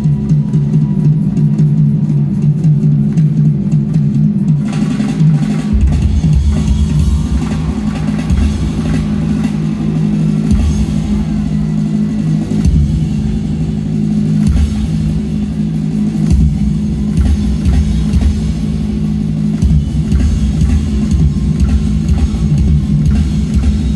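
Drum kit solo played live through an arena sound system, over a steady low bass tone; heavier low drumming comes in about six seconds in and carries on in stretches.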